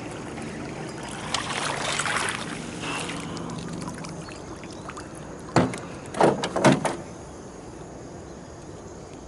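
A hooked bass splashing at the water's surface as it is drawn to the boat and netted, with a cluster of sharp, loud splashes and knocks a little past halfway.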